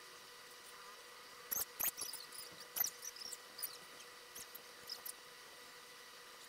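Pencil scratching on sketchbook paper in a run of short, quick strokes, starting about a second and a half in and stopping about five seconds in.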